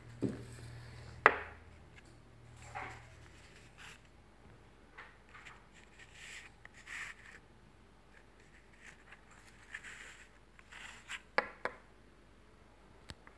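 Handling noises: scattered light knocks, taps and rubbing as a glass ant test tube is picked up and moved about on a wooden tabletop. There is one sharper knock about a second in and a quick pair of clicks near the end.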